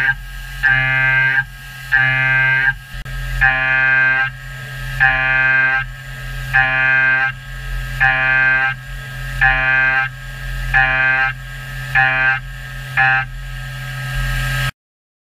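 CNC machining centre high-feed milling a metal block: each pass of the cutter through the metal rings as a pitched whine, repeating about every second and a half and coming quicker near the end, over the steady hum of the running spindle. The sound cuts off suddenly near the end.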